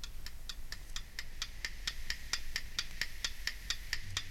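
Clock-ticking sound effect: quick, even ticks, roughly four or five a second, over a faint steady high tone.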